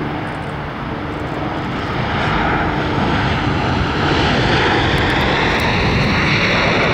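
Boeing 787's twin jet engines spooling up into reverse thrust during the landing rollout. The jet noise grows louder from about two seconds in, with a whine rising in pitch.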